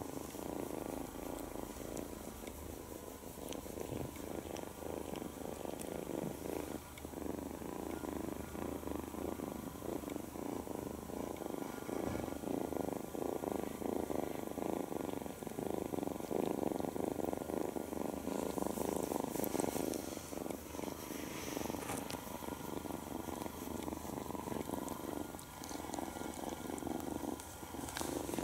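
Nine-week-old tabby kitten purring continuously.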